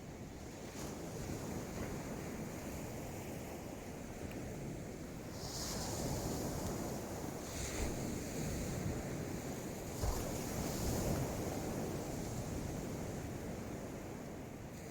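Sea waves washing onto the beach with wind buffeting the microphone, the surf swelling twice, about a third of the way in and again near two-thirds. A single short sharp tap about ten seconds in.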